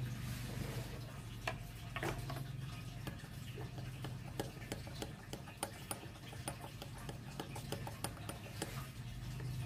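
A metal teaspoon stirring milk and vinegar in a small glass bowl, clinking lightly and quickly against the glass, several times a second, from about three seconds in. A couple of louder knocks come before it.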